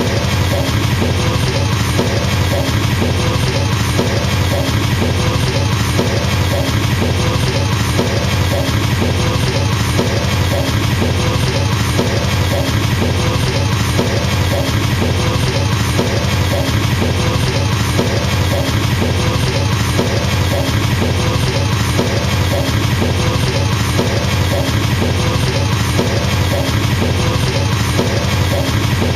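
Drum kit played with a very fast, unbroken double bass drum pedal roll: the kick strokes run together into a steady machine-gun-like rumble, with an even, repeating pattern on top and no breaks.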